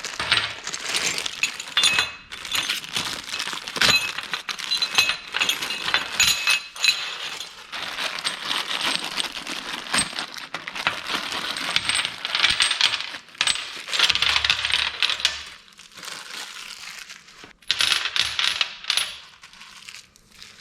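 Small loose steel parts and hardware clinking and rattling as they are handled, with many short metallic clinks, some of them ringing briefly.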